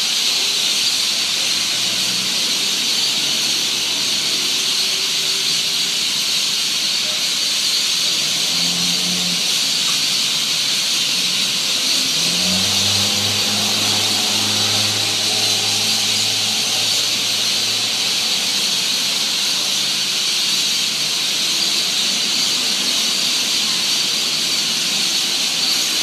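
A large flock of birds gathered in a tree for their evening roost, calling all at once in a dense, continuous, high-pitched chorus. A low hum sits faintly under it for several seconds around the middle.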